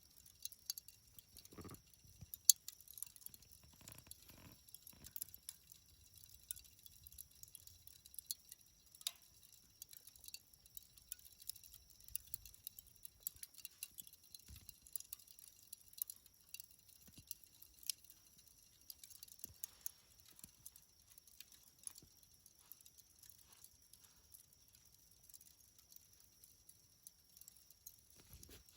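Burning charcoal in a campfire crackling, with sharp, high ticks and pops at irregular intervals; the loudest crack comes about two and a half seconds in.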